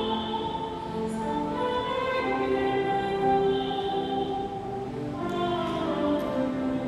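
A choir singing a hymn with long held notes that move from one pitch to the next about once a second.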